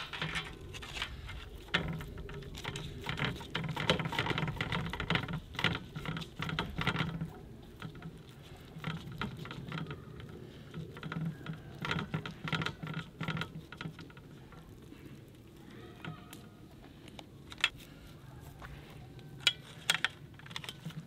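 Hands pressing and patting raw ground meat into a flexible ring mould on a metal tray to shape burger patties. A quick, uneven patter of moist slaps and squishes, busiest in the first half, with a few sharper clicks near the end.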